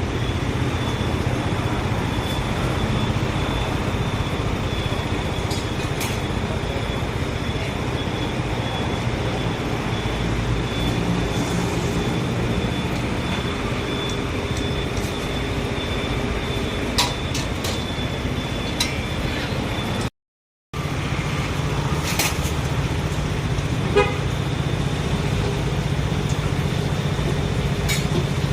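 Steady street traffic noise with passing cars and a low engine rumble, scattered small clicks and knocks, and a brief total silence about twenty seconds in.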